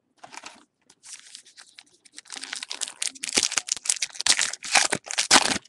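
A 2013 Topps Gypsy Queen baseball card pack being torn open by hand, its wrapper crinkling and ripping. Short rustles come first as the pack is taken from the box, then the tearing and crinkling grow louder and are loudest over the last two seconds.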